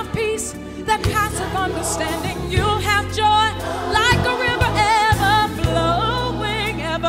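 Gospel music: a woman singing with wide vibrato over steady, held bass notes.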